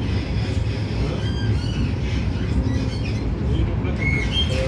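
Tram running with a steady low rumble, with short high squeaks and chirps over it from about a second in.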